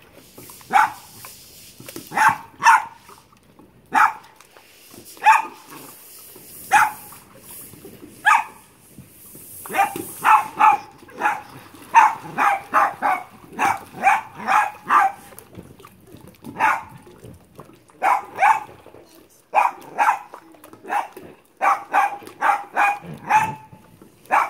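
Small white dog barking over and over in short, sharp barks. They come singly every second or so at first, then in quick runs of three or more, about three a second.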